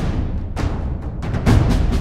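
War drums beating a rhythm: several heavy strikes over a constant deep low rumble, the loudest about one and a half seconds in.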